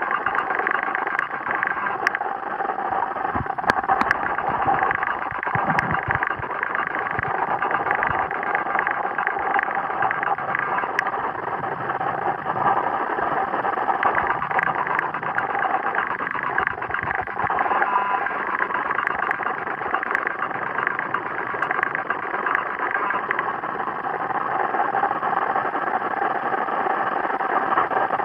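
Steady muffled underwater noise picked up by a submerged camera, with a few faint clicks.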